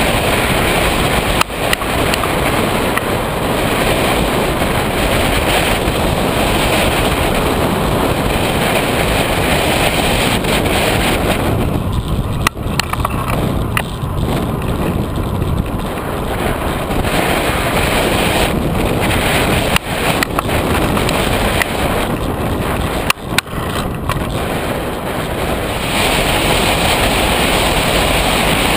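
Wind rushing over the microphone of a camera on a moving road bike, a loud steady noise that eases for a few seconds around the middle and again later. A few brief knocks cut through it.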